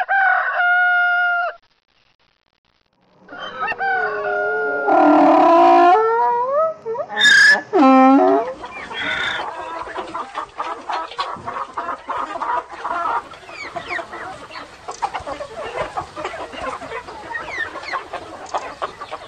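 Rooster crowing: one long held crow at the start, then several overlapping crows from about three seconds in. After that comes a steady busy chatter of chickens clucking.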